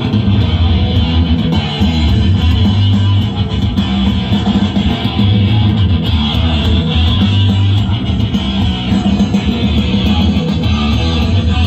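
Loud music with guitar and a heavy, booming bass, played through a large sound-system rig driven from a mixing desk.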